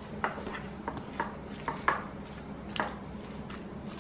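Metal spoon clinking against a ceramic bowl while stirring a vegetable stuffing: a string of irregular light clinks, roughly two a second.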